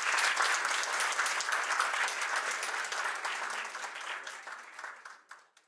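Audience and panel applauding, many hands clapping at once, loudest at the start and dying away near the end.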